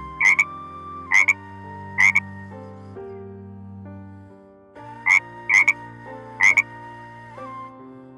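Six short, loud animal calls over soft background music: three about a second apart, a pause of about three seconds, then three more.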